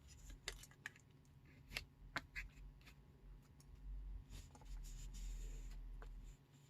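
Hands handling and pressing a glued cardstock piece onto a card: scattered light taps and clicks, then about two seconds of soft rubbing near the end.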